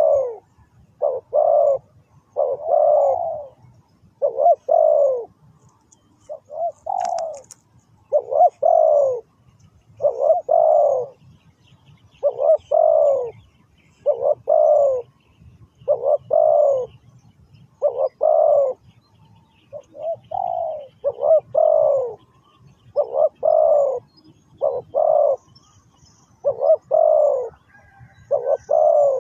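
Spotted dove cooing over and over: short coo notes, each falling a little in pitch, strung into phrases at about one or two notes a second.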